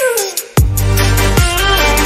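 Electronic background music with a heavy bass and sharp beat hits; it drops out briefly and comes back in loudly about half a second in.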